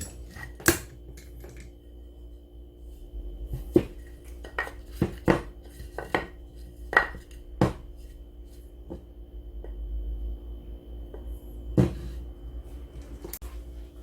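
Irregular sharp clicks and knocks of hard objects being handled, about a dozen of them spread unevenly, over a faint steady hum.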